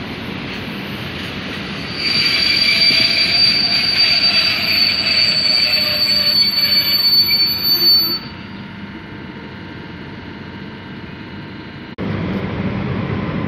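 PKP Intercity passenger coaches rolling along the track, with a loud high steady metallic wheel squeal from about two seconds in that fades out near eight seconds, leaving a quieter rumble. Near the end the rumble turns abruptly louder and lower.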